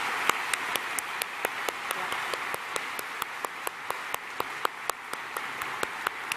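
A large audience applauding: a steady wash of clapping, with one set of sharp nearby claps standing out about four times a second. It begins to die down near the end.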